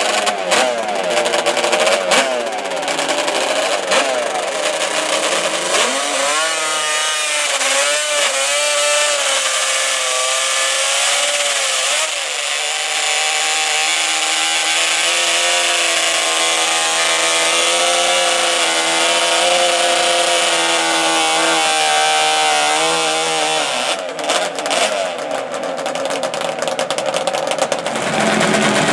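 Racing ATV engines revving at high rpm, their pitch wavering and gliding up and down. Through the middle comes a long, steady high-revving run that climbs slowly in pitch, then breaks up near the end.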